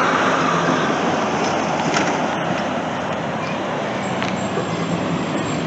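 Steady road traffic noise, cars going by.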